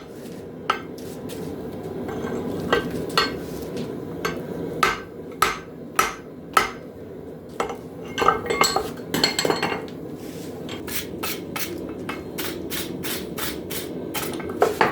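Hammer blows on metal, irregular at first, then a quick steady run of about three blows a second near the end, over a steady low hum.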